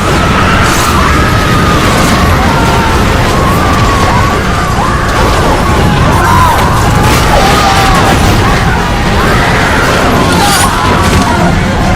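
Dubbed-in airliner crash sound effects: a continuous loud rumble with scattered bangs and crashes, and high wavering voices crying out over it.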